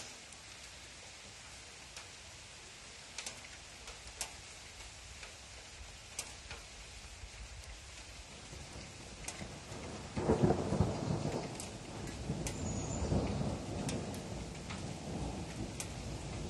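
Steady rain with scattered sharp drips. About ten seconds in, a loud roll of thunder breaks out and rumbles on.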